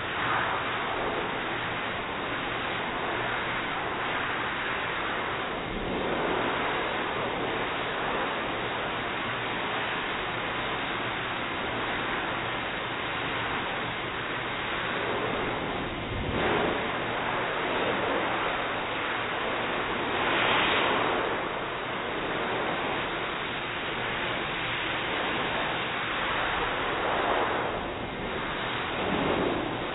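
Forced-air dog grooming dryer blowing a steady rush of air through its hose onto a dog's long coat, swelling louder now and then as the nozzle moves.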